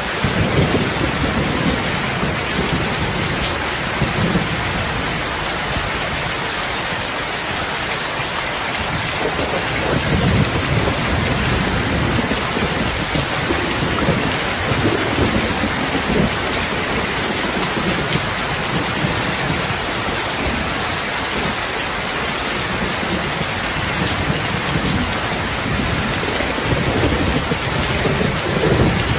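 Heavy rain falling steadily, with low rumbles of thunder swelling up several times.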